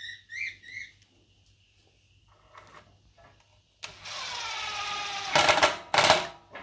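Cordless drill driving a long screw into a wooden cleat: the motor starts about four seconds in and runs steadily under load, then two louder bursts near the end as the screw drives home.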